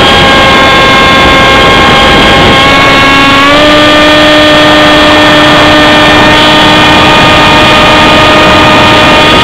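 Electric motor and propeller of an AXN RC model plane whining steadily under heavy wind rush on the onboard camera, stepping up in pitch a few seconds in and dropping sharply near the end.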